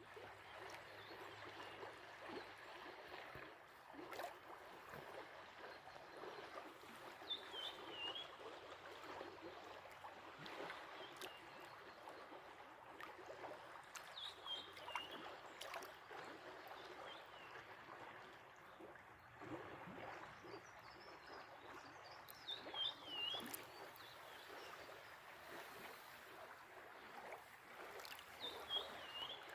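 A small stream running, a steady faint rush of water with small splashes, while a songbird repeats a short descending phrase about every seven seconds.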